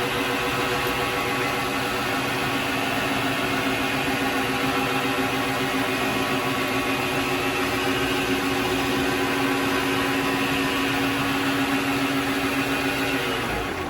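Vevor MX400 mini lathe running steadily with the spindle turning. Near the end it is switched off and the motor's whine drops in pitch as the spindle winds down.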